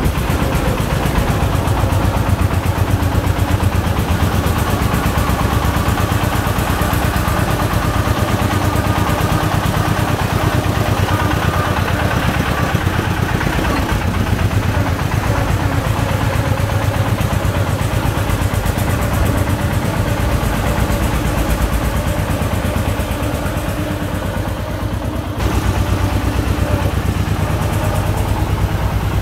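Công nông farm truck's single-cylinder diesel engine chugging steadily with a fast, even knock as the sand-laden truck drives along. The sound dips briefly near the end, then comes back a little louder.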